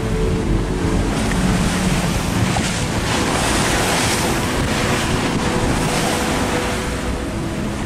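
Sailing yacht under way in rough water: waves rushing and splashing along the hull and wind buffeting the microphone. The spray swells to a louder rush around the middle.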